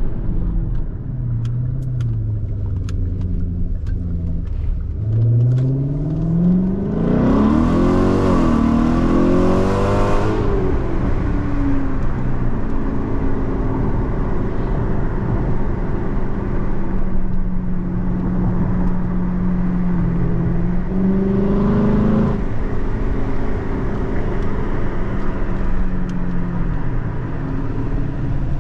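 The 5.0-litre V8 of a 2012 Hyundai Genesis R-Spec running on E85, heard from inside the cabin: a steady low cruise, then from about five seconds in a hard full-throttle pull with the engine note climbing steeply for several seconds. It then settles into a steady cruise, with a short second rise in revs later on.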